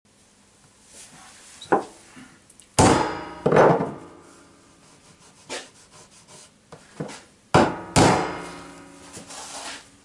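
Hard knocks on a pine board frame lying on a workbench as the boards are shifted and tapped with a claw hammer. Two loud pairs of knocks come about three seconds in and about eight seconds in, each with a short ringing decay, and lighter knocks and scrapes fall between.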